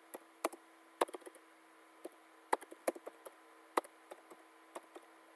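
Slow, uneven typing on a computer keyboard: single key clicks, some in quick runs of three or four and some with pauses between, over a faint steady hum.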